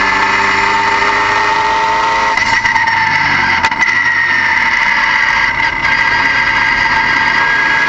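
Car engine running, with a loud, steady high-pitched whine whose pitch drifts slowly; the lower engine note fades about two and a half seconds in, and there is a brief click near the middle.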